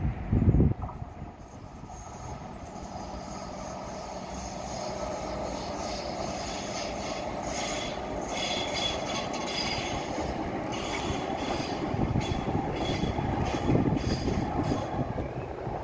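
Light rail tram passing on its tracks, its running noise growing louder as it draws near and peaking as it goes by close, with a thin high-pitched squeal in the second half. Wind buffets the microphone briefly at the start.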